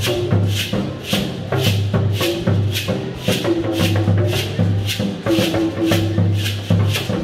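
West African drum-and-shekere music: hand drums beat a low pattern while a shekere (a beaded gourd rattle) is shaken in a steady rhythm of about two sharp rattles a second.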